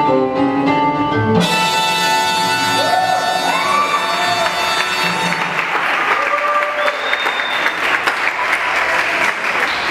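Latin dance music playing loudly. From about halfway through, an audience claps over it.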